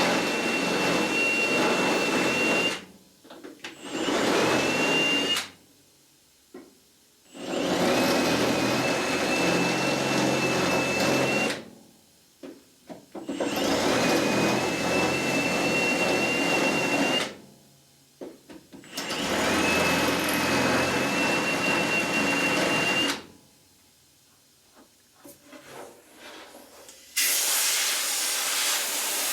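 A metalworking tool on sheet-metal bodywork, run in five bursts of three to four seconds with short pauses between them. Each burst carries a steady high whine that rises as it starts. Near the end a steady hiss sets in.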